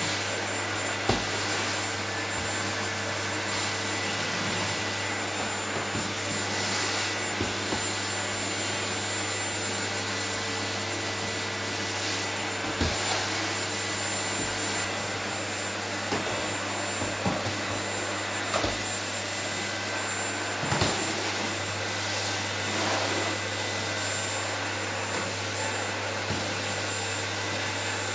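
Canister vacuum cleaner running steadily, its wand and floor nozzle worked over a wooden floor, with a few brief knocks along the way.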